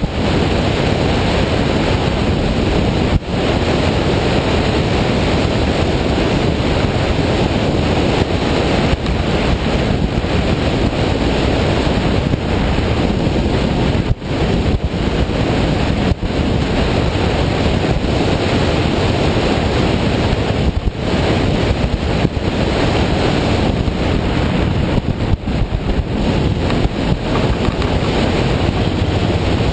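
Loud, steady wind rush over the microphone of a camera on a moving motorcycle, with a few brief dips now and then.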